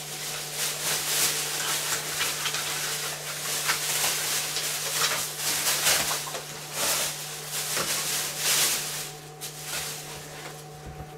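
Plastic rubbish sack rustling and crinkling in irregular bursts as trimmed-off offcuts are stuffed into it, over a steady low hum.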